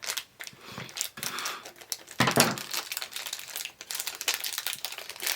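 A small mystery-pin box and its sealed bag being opened by hand: a run of crinkling and rustling of the packaging, with one louder rustle or knock about two seconds in.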